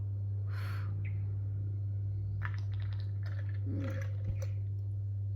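A steady low hum runs throughout, with a few faint rustles and small clicks over it.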